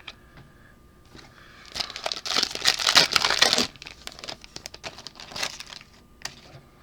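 A trading card pack's plastic wrapper crinkling as it is torn open: a dense burst of crackling from about two seconds in to nearly four seconds, then lighter, scattered crinkles.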